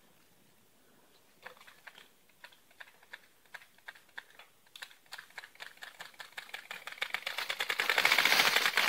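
Bicycle freewheel hub ticking as the rider coasts along a fallen log, single clicks at first that grow faster and louder into a rapid buzz near the end as the bike nears.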